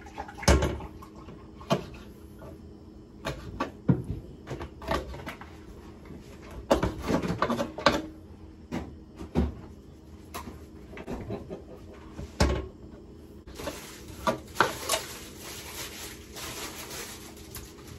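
Irregular knocks and clatter of kitchen prep work: a knife and chicken feet being handled on a cutting board beside a steel sink. A few seconds of steady hiss come in late on.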